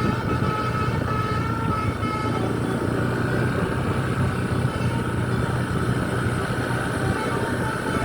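Tour bus under way with steady engine and road noise, and a telolet musical horn sounding short pitched notes through the first few seconds, then a more even tone.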